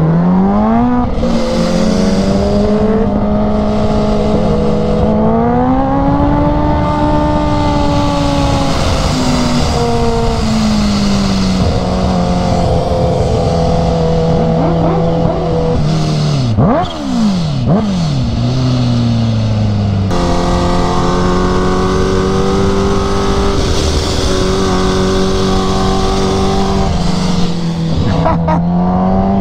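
Kawasaki Ninja H2's supercharged inline-four engine through an aftermarket exhaust, heard from the rider's seat over wind rush. It revs up at the start, holds a steady cruise, rises and falls with the throttle, dips sharply a couple of times about two-thirds through, and climbs again near the end.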